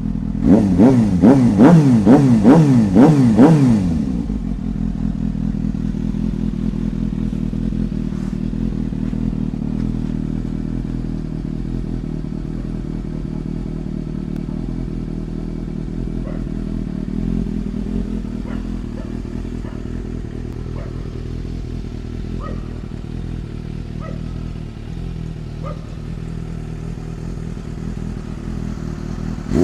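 Suzuki GSX-S750's inline-four engine through an SC Project slip-on exhaust, revved in a quick series of about seven throttle blips over the first few seconds, then settling to a steady idle.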